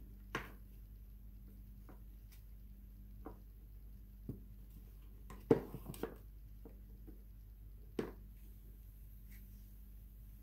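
Melt-and-pour soaps being handled, making a few light knocks and taps, with a short cluster of them about halfway through as the loudest part, over a faint steady hum.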